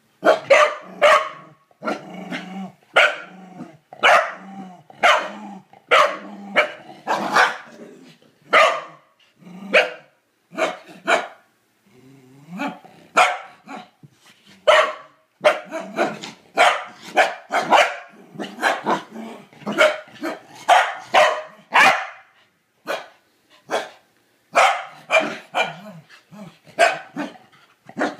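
Young Welsh Corgi barking over and over in quick runs, about one or two barks a second with short pauses, with a low growl rumbling between barks in the first half: agitated, defensive barking at a toilet brush pushed at its face.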